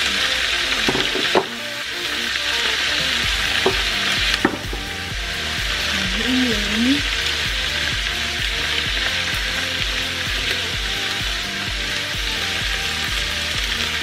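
Diced pork and vegetables sizzling steadily in hot oil in a nonstick frying pan while being stirred with a silicone spatula, with a few sharp knocks against the pan in the first few seconds.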